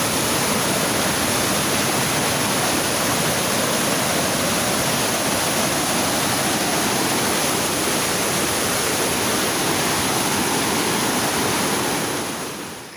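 Muddy floodwater from a flooded stream rushing and churning over a concrete ledge: a loud, steady rush of water that fades away near the end.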